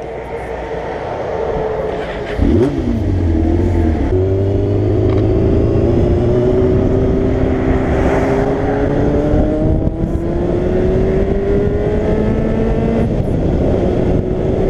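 Sport motorcycle engine pulling away and accelerating. The engine note jumps sharply about two and a half seconds in, then climbs steadily and drops once near the end at a gear change. Wind rushes over the helmet-mounted camera as speed builds.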